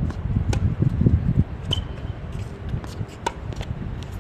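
Tennis ball struck by rackets during a doubles rally on a hard court: three sharp pops a little over a second apart, over a steady low rumble.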